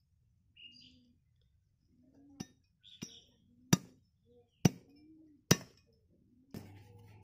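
Large curved knife chopping goat leg pieces on a wooden block: five sharp chops, roughly one every 0.8 s, starting a couple of seconds in.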